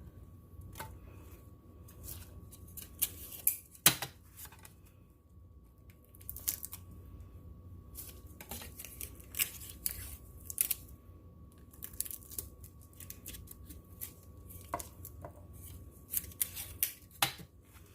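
Tape being pulled from a roll, torn off and pressed onto the undersides of CDs: short ripping sounds and light clicks and taps at irregular intervals, the loudest a sharp click about four seconds in.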